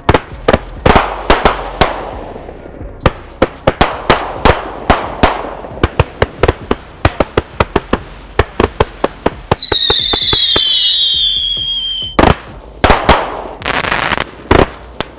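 Slayer 42-shot XL aerial cakes firing: a rapid, uneven series of sharp launch thumps and bangs. About ten seconds in comes a falling whistle, followed by more bangs and a dense burst of crackling near the end.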